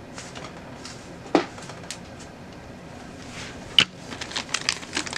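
Two sharp knocks about a second and a half apart, then the crinkling of a clear plastic bag as a bagged fire alarm device is picked up near the end.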